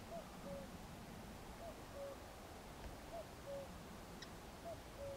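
A bird calling in the distance: a two-note call, a higher note then a lower one, repeated four times about a second and a half apart.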